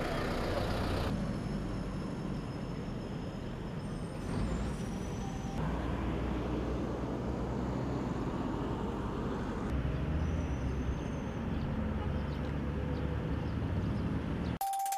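Highway traffic noise: a steady low rumble of vehicles on the road, changing abruptly at edit cuts. Near the end a news outro jingle begins with a held tone.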